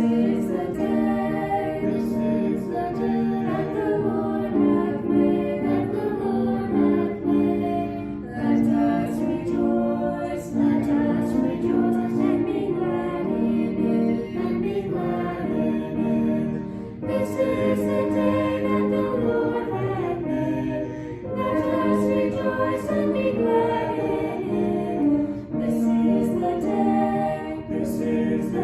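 A choir singing in harmony, in phrases with short breaks between them.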